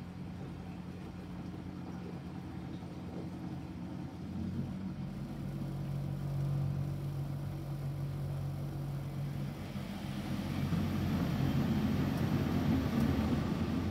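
Miele Novotronic W715 front-load washing machine tumbling a water-laden duvet on a rinse, its drum motor humming steadily. The motor's tone shifts about four and a half seconds in, and the machine gets louder and noisier from about ten seconds in.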